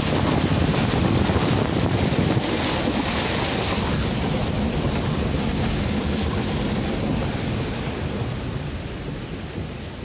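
A car's tyres running through shallow floodwater on a track: a steady rushing splash, with wind on the microphone. It eases off a little near the end.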